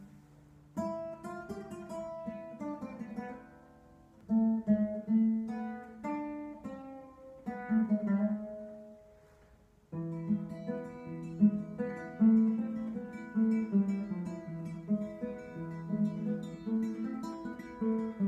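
Acoustic guitar being played, plucked notes and chords, with a brief pause about nine seconds in before the playing picks up again.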